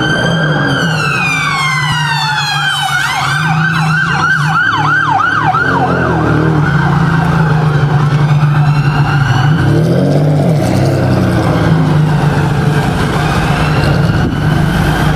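An emergency vehicle's siren, first a slow wail that falls in pitch, then a fast up-and-down yelp at about three sweeps a second for a few seconds, then fainter wailing. Steady engine and traffic noise runs underneath.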